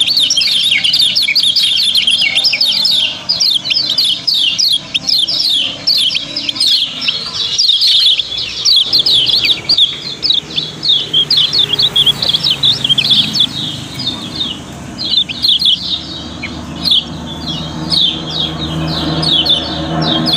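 Caged kecial kuning (Lombok white-eyes) chirping together: a fast, continuous high chatter of many short calls overlapping without a break.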